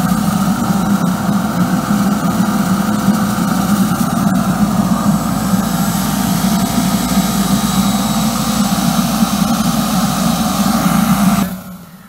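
Homemade burner-fired steam boiler unit running at full output, a steady mechanical running noise from its burner and pump with steam jetting from the nozzle in a hiss. It cuts off suddenly near the end.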